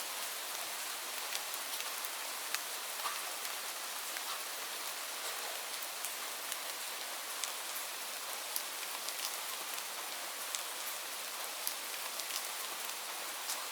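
Steady rain falling, a continuous hiss with many separate drops ticking sharply on a hard surface.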